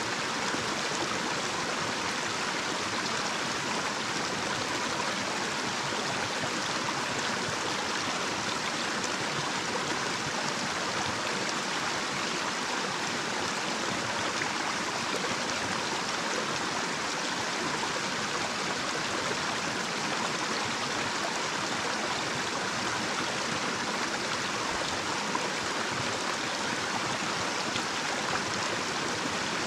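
Small, shallow natural stream running over a little cascade: a steady, unbroken rush of flowing water, bright and hissy with little low rumble.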